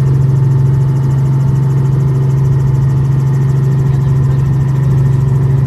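Light helicopter's engine and rotor heard from inside the cabin as it lifts off and climbs: a loud, steady drone with a strong low hum.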